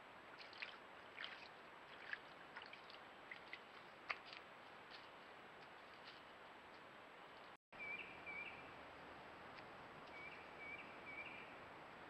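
Faint outdoor creek-side ambience picked up by a trail camera's microphone: a steady soft hiss with scattered faint clicks and rustles. After a cut about two-thirds of the way in, a few short high chirps come in quick pairs and triples.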